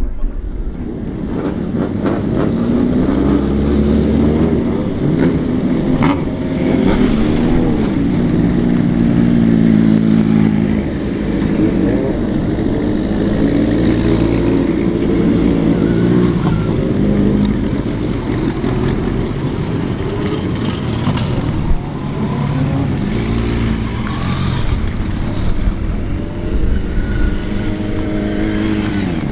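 Old Japanese motorcycles riding past at close range, one after another, their engines revving up and down.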